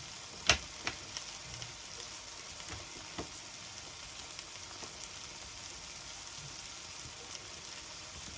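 Steady sizzle of food frying in a pan, with one sharp click about half a second in and a few lighter clicks over the next few seconds as lettuce is handled.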